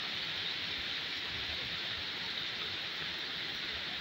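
Steady rush of a swollen river in flood, its muddy water surging past and over a low footbridge, mixed with heavy rain.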